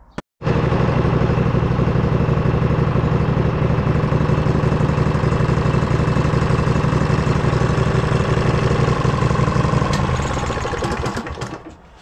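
Briggs & Stratton Vanguard 18 HP V-twin on a riding lawn tractor: a sharp click, then the engine catches almost at once and runs steadily, winding down and stopping near the end. It is started by crossing the two solenoid terminals, because the key alone only clicks the starter despite a brand-new solenoid.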